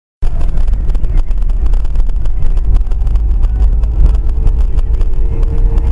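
Steady low rumble of a car's engine and road noise heard from inside a moving car, fluttering quickly, with a faint steady hum coming in about halfway through.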